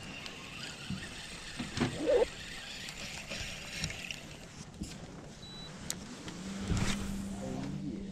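Spinning reel being cranked as line is wound in. A steady low motor hum starts about six seconds in.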